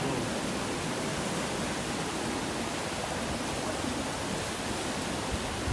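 Steady rush of churning white water on a canoe slalom course.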